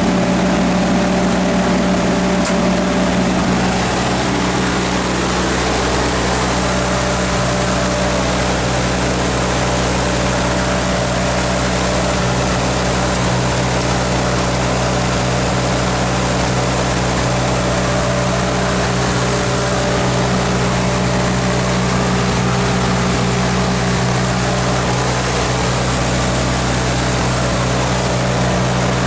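1954 Hobart 10 kW military generator set's Hercules IXB engine running steadily at full governed speed, switched onto an electrical load at the start and carrying it with no change in its note.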